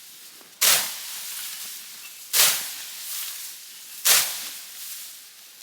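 Manual weed whacker, a hand-swung grass cutter, slicing through standing grass. Three swishing cuts come about one every second and three-quarters, each starting sharply and fading out.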